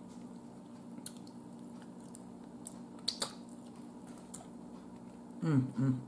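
Faint mouth sounds of someone chewing barbecue pulled pork, with a few soft wet clicks and smacks, over a low steady hum. A short burst of voice comes near the end.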